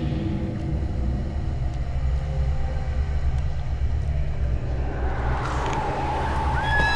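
A low, steady rumble as a dark background drone, with faint held music tones fading out over the first few seconds. A swell of noise builds near the end.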